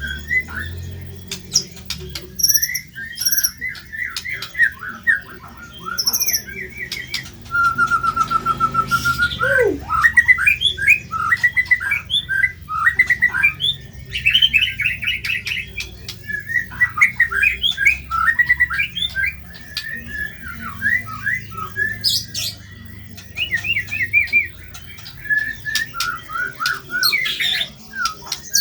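White-rumped shama (murai batu) singing a fast, harsh song of rapidly repeated chattering notes and trills, with a steady buzzing trill about a third of the way in and a few short, very high notes near the start.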